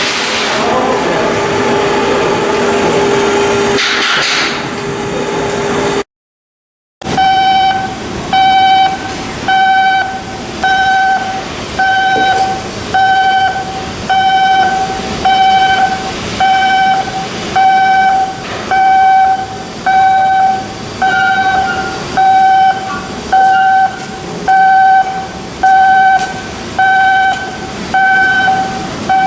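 A loud steady hiss with a low hum, which cuts off about six seconds in. Then an electronic warning beeper starts up: one steady tone with overtones, pulsing about once a second.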